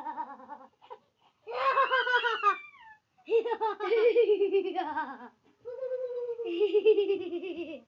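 A young child laughing in high-pitched giggles, three long bouts with short breaths between them.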